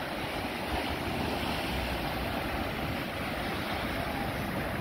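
Ocean surf breaking and washing over a rocky shoreline: a steady, continuous rush of water.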